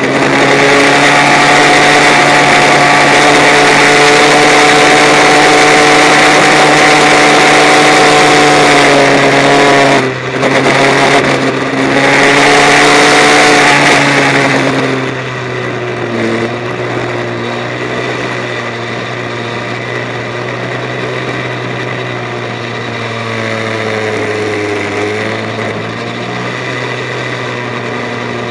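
Kart engine heard from an onboard camera, running at steady high revs with a brief lift off the throttle about ten seconds in. About halfway through it eases off to a lower, quieter note, with a short dip in pitch near the end.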